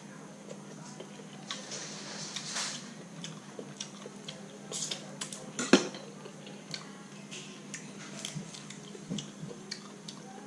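Close-up eating sounds of a person chewing cooked Dungeness crab meat, with scattered small clicks and crackles of shell being picked apart and one sharp click about halfway through, over a steady low hum.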